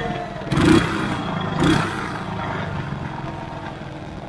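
Quad bike engine running, with two short louder surges about half a second and a second and a half in, then easing lower as the bike fails to get going.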